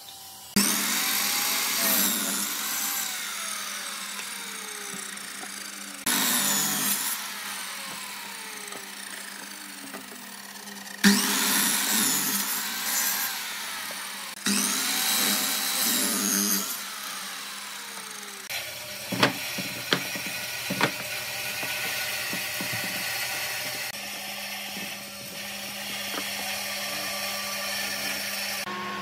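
Sliding compound miter saw cutting wooden strips, four times in the first half: each time the motor spins up, the blade bites through the wood, and it winds down with a falling whine. In the second half a quieter steady hum with a few scattered knocks.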